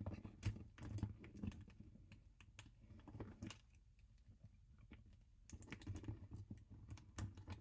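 Irregular small clicks and taps of a purse strap's clasp hardware being handled and clipped onto the bag, with a quieter stretch in the middle.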